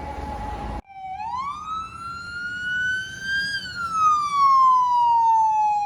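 An FDNY emergency vehicle's siren in a slow wail: a rise lasting about two and a half seconds, a slower fall of about three seconds, then the start of the next rise near the end. Before it, a steady tone over a low rumble cuts off abruptly less than a second in.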